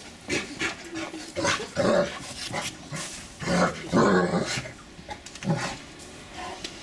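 Irish wolfhound pups growling and vocalising in irregular bursts, the loudest about two seconds and four seconds in.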